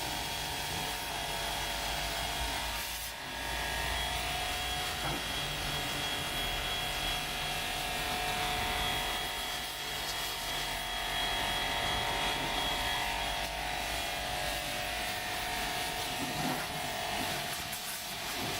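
Small electric high-pressure washer's motor and pump running steadily, a buzzing hum with a few steady whining tones over a hiss.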